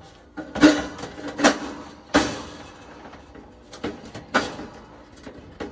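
Sheet-metal knocks and clanks from a dryer heating element assembly being handled and fitted, about six sharp hits spread irregularly, some with a short metallic ring.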